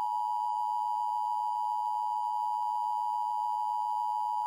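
Emergency Alert System attention signal: a steady two-tone electronic alarm, held without a break, that cuts off abruptly just before the end.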